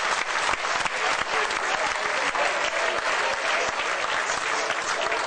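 Crowd applauding, a dense steady clapping of many hands.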